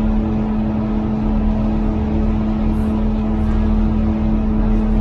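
Cog railway train running steadily, a continuous engine drone with a strong, even hum and rumble beneath.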